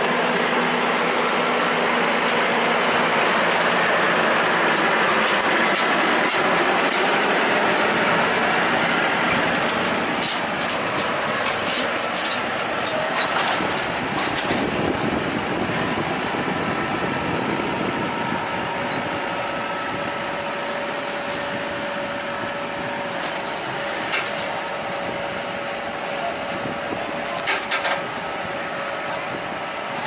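Maxxi Bimo rice combine harvester's engine running steadily close by, with a handful of short sharp metallic knocks around the middle and again near the end.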